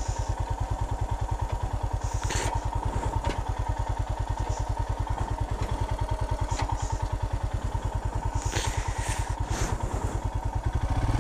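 Royal Enfield Himalayan's 411 cc single-cylinder engine idling with an even low thump, several beats a second, with a few light clicks and knocks.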